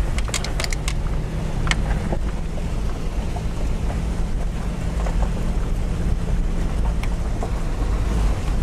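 Off-road 4x4 driving on a rough dirt road, heard from inside the cab: a steady low engine drone with road rumble. Sharp clicks and rattles come in the first two seconds.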